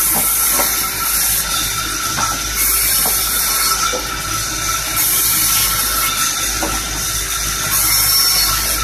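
Large sawmill bandsaw running and ripping through medang wood, a steady loud hiss of the blade in the timber that swells and eases every two to three seconds as the board is fed through.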